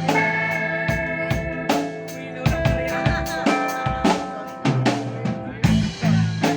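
A band playing music: a drum kit hitting a regular beat with snare and bass drum, under held bass notes and chords.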